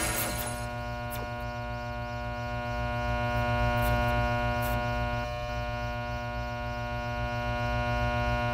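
Ambient electronic drone: a held chord of many steady tones over a low pulsing throb, after denser music falls away in the first half-second. A few faint high swishes come in the first five seconds.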